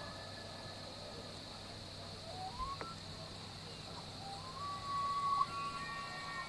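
Bull elk bugling, the rut call: a short rising whistle about halfway through, then a long high whistled note held for over a second near the end.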